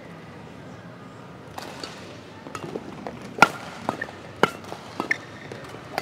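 Badminton rackets striking a shuttlecock in a singles rally: sharp hits about a second apart, starting about a second and a half in, with the loudest two near the middle.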